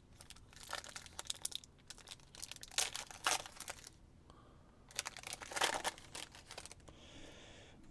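Crinkling and tearing of a trading-card pack wrapper as it is ripped open and handled, in three bursts of crackle a couple of seconds apart.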